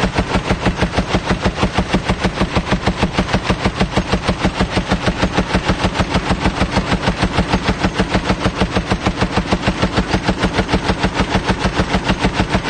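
Browning M2 .50-calibre heavy machine gun firing one long, unbroken burst of fully automatic fire, shots coming in a steady, even, rapid rhythm.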